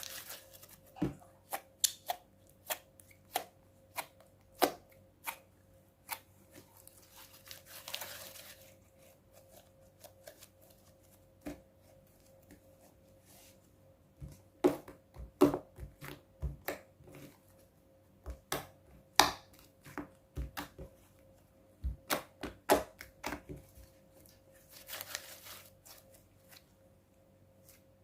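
Clear-glue and borax slime being squeezed and worked by hand, giving irregular sharp clicks and pops, with two longer hissing squelches, one about a third of the way in and one near the end.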